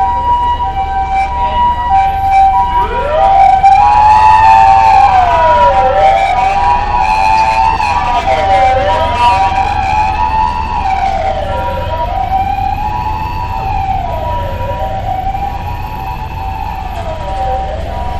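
Emergency vehicle sirens in a Japanese street: a two-tone hi-lo siren alternating between two steady pitches, of the kind Japanese ambulances use. About three seconds in it is joined by a wailing siren that slowly rises and falls every few seconds, with echoes off the buildings.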